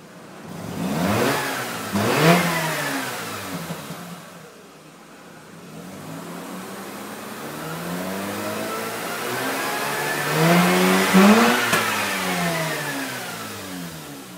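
Mazda RX-8's twin-rotor Wankel engine and exhaust, its pitch rising and falling twice: a short rev-up and drop about two seconds in, then a longer build to a peak near eleven seconds that falls away towards the end.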